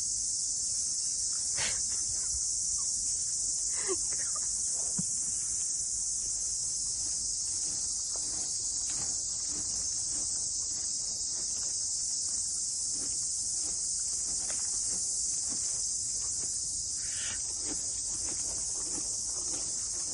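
Steady high-pitched chorus of chirring crickets, with a few faint brief knocks and rustles underneath.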